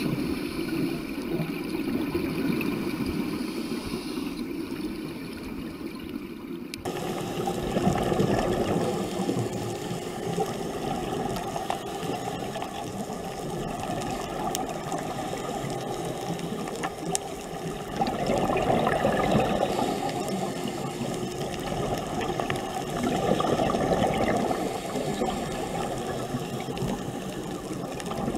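Muffled underwater noise from a diving camera: a steady wash of water sound with no voices. The character changes abruptly about seven seconds in, and there are several louder rushing surges later on.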